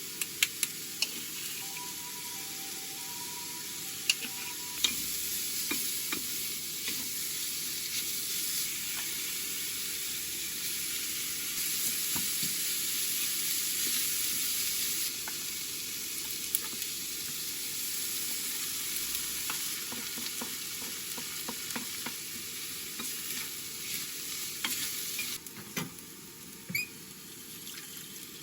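Food sizzling in a frying pan on a stovetop burner, with frequent sharp clicks and scrapes of a utensil stirring it against the pan. The sizzle drops off near the end.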